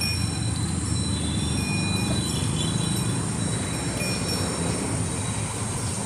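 Steady low rumble under thin, high-pitched insect chirring that comes and goes.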